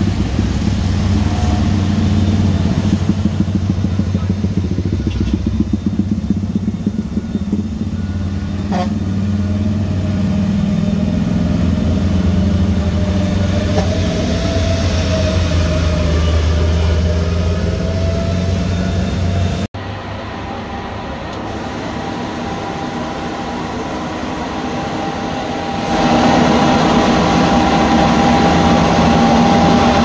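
Truck and pickup engines labouring up a steep climb, with motorcycles passing, heard as several separate clips that change abruptly. Near the end a louder truck engine comes in with a steady whine over its running.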